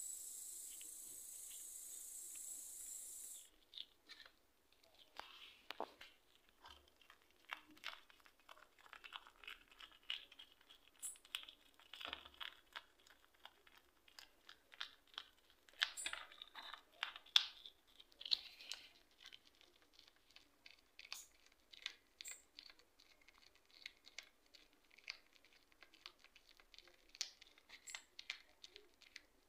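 Hedgehog chewing a wart-biter bush-cricket: a quick, irregular run of small crunches and clicks as it bites through the insect's hard body. A steady hiss at the start cuts off suddenly about three seconds in.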